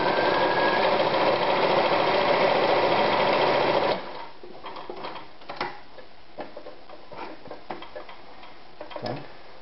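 Anker 220 Super Stretch electric sewing machine running steadily, stitching a narrow short-stitch zigzag, then stopping abruptly about four seconds in. A few light clicks and rustles of handling follow.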